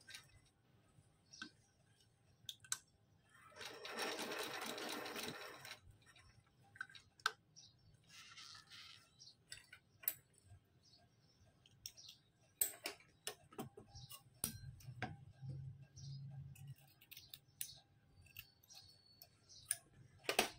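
Black vintage sewing machine stitching a seam in glitter fabric for about two seconds, a few seconds in, with a dense rattle. Scattered light clicks and rustles follow.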